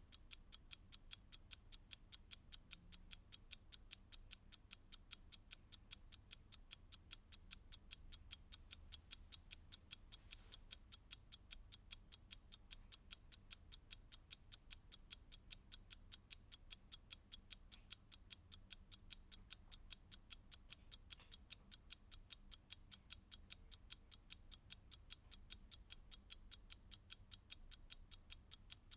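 Mechanical clock ticking: crisp, even ticks several times a second, alternating slightly louder and softer beats.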